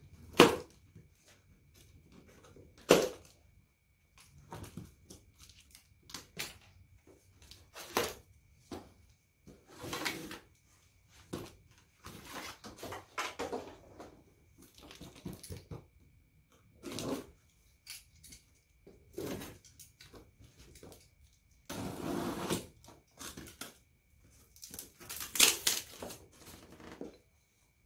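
Cardboard box being handled and opened by hand: irregular taps, knocks and rustling of cardboard, with a few sharper clicks, busiest near the end.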